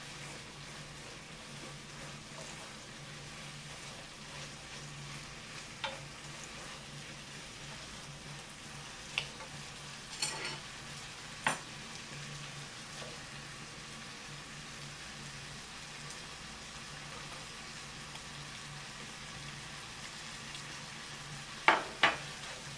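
Dakgalbi (spicy chicken and vegetables) sizzling in a frying pan on a portable gas burner while being stirred with a wooden spatula. A few sharp knocks of the spatula on the pan come through, two close together near the end.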